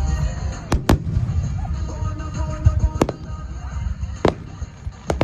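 Aerial fireworks exploding: several sharp bangs, spread irregularly, over a continuous low rumble.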